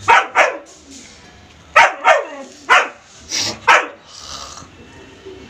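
Doberman barking in quick pairs, about seven sharp barks in the first four seconds, then stopping.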